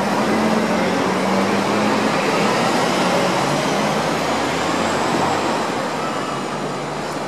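Steady city background noise: an even rush of traffic noise with a low hum underneath, easing slightly near the end.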